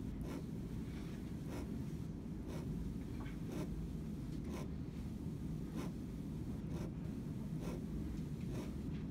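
Ballpoint pen tip scratching across paper in short hatching strokes, about one stroke a second, over a steady low room hum.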